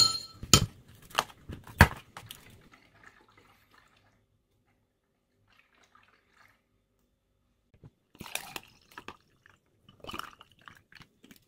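Ice cubes dropped into empty glass tumblers, four sharp clinks within about two seconds. From about eight seconds in, juice is poured over the ice in splashing bursts.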